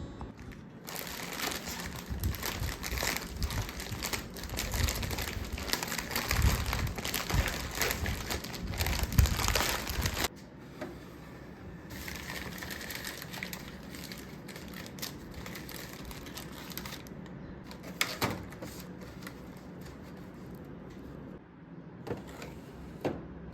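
Packaging being handled: dense crinkling and rustling with many small clicks that stops abruptly about ten seconds in. Quieter handling follows, with a few sharp knocks near the end.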